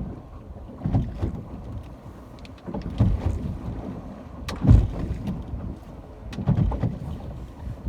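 Ocean water surging and splashing in low, rumbling swells about every two seconds, mixed with wind buffeting the microphone.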